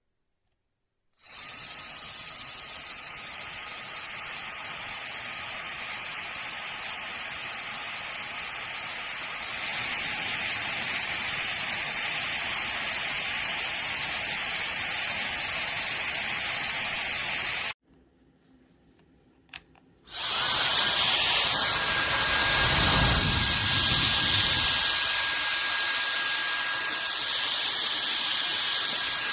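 SUPGALIY mini ionic hair dryer running with a steady blowing hiss and a high motor whine. It gets louder about ten seconds in and switches off a little past halfway. It then starts again louder, with a brief low rumble of air partway through.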